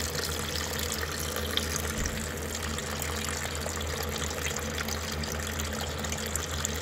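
Water pouring in a steady stream from the oil pan drain of a 606 cubic inch big-block Chevy into a plastic bucket, splashing onto the water already in it. Water in the crankcase is the sign that the failure broke into the water jackets.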